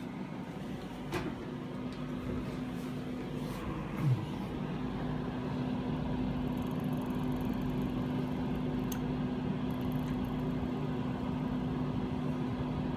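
Steady whirring hum of warm air blowing out of a solar air heater's ceiling vent, with a low steady tone in it. It grows louder over the first few seconds, and there is a brief bump about four seconds in.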